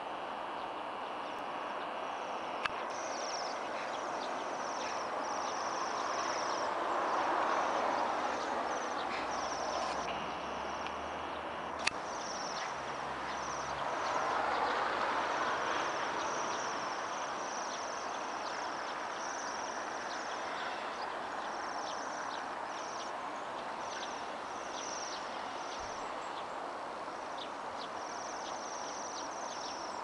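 A flock of Bohemian waxwings in a birch calling continuously, many birds at once giving their high, ringing trills. A broad rushing background noise swells twice, about a quarter of the way in and again near the middle, and there are two sharp clicks.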